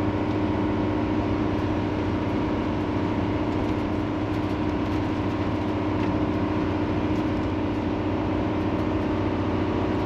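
Steady road and engine noise inside a motorhome's cab cruising at highway speed, an even drone with a constant hum running through it.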